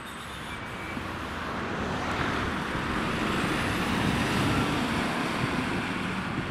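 Mercedes-Benz Sprinter fire-brigade command van driving past: engine and tyre noise grows to a peak about four seconds in as it passes, then starts to fade as it pulls away. No siren is sounding.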